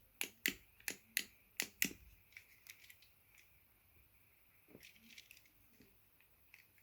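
Clicky buttons on a fidget game controller being pressed, a series of sharp plastic clicks. About six loud clicks come in the first two seconds, then fewer and fainter ones.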